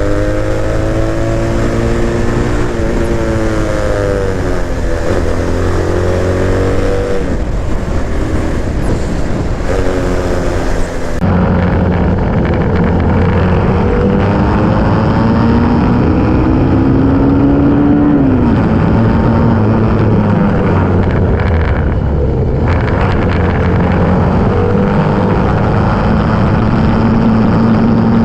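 A motor vehicle's engine running on the move, its pitch rising and falling as it speeds up and slows down. About eleven seconds in, the sound turns duller but the engine keeps running.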